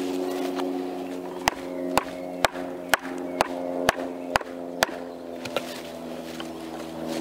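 A wooden baton knocking on the spine of a knife (batoning) to work it into a fresh branch: eight sharp knocks, about two a second, over steady background music.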